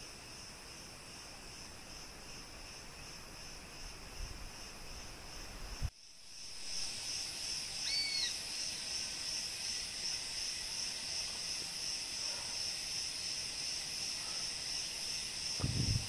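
Steady chorus of forest insects, a high pulsing drone that gets louder after an abrupt cut about six seconds in. A single short chirp comes near eight seconds.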